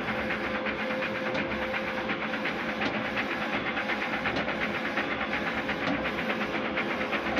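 DTF printer fitted with Epson XP600 print heads printing: the print-head carriage shuttling back and forth across the film, a steady mechanical whir with fast clicking and a faint steady hum.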